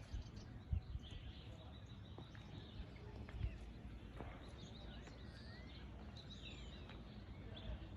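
Faint outdoor ambience with small birds chirping now and then. Two soft thumps come through, one about a second in and another about three and a half seconds in.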